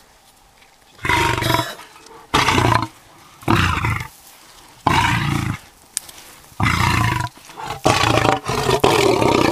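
Male lion roaring at close range: a series of short, loud calls, the first about a second in and the rest following every second or so, running together near the end.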